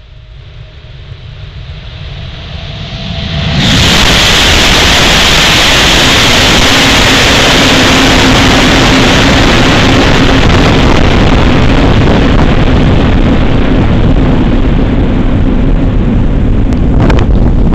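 ICE 3 high-speed train passing through a rail tunnel: a rumble building for a few seconds, then, about three and a half seconds in, a sudden loud rush as the train goes by. Its air blast keeps buffeting the microphone with a steady low hum underneath as it runs on into the tunnel.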